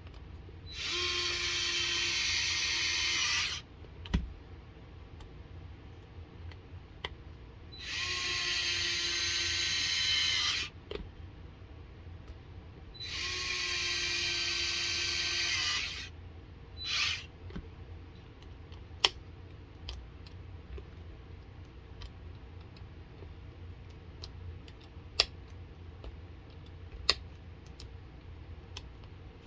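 DeWalt power driver spinning in three runs of about three seconds each, then a short burst, driving the screws of plastic beadlock rings on RC crawler wheels; small clicks of handled parts follow.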